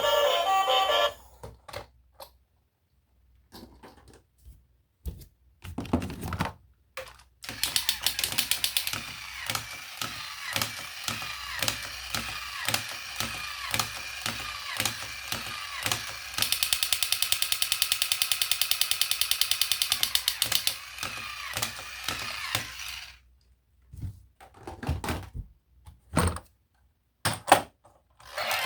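Plastic toy vehicles being handled, with scattered clicks and knocks. Then comes a long stretch of rapid, evenly spaced ticking over a whirring tone, fastest and loudest a little past the middle, like a small toy mechanism running.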